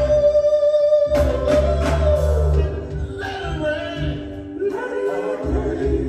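Live soul vocal group and backing band performing a ballad: a long held note for about a second, then sliding, ornamented singing over the band, a little softer after about two and a half seconds.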